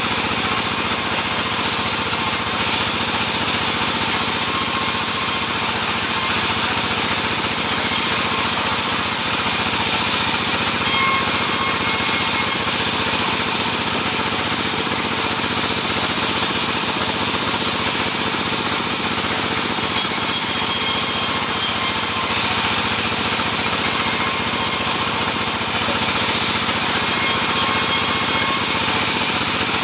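A sawmill saw running steadily through sengon (albizia) wood, a continuous machine noise with no pauses.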